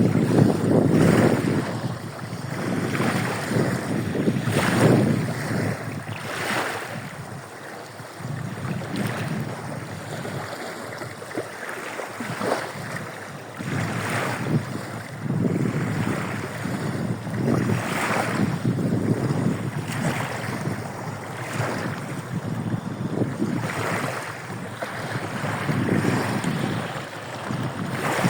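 Waves of a bay washing in and splashing on the shore, one surge after another every second or two, with wind rumbling on the microphone.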